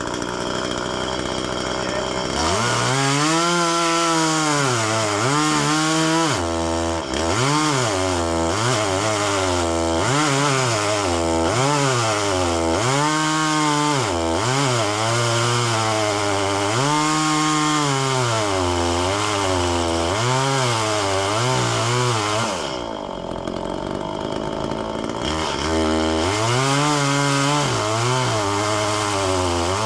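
Two-stroke chainsaw cutting into a dead ash tree. It idles for about two seconds, then runs at full throttle with its pitch repeatedly sagging and recovering as the chain bites into the wood. It drops back to idle for a couple of seconds near the end, then revs up and cuts again.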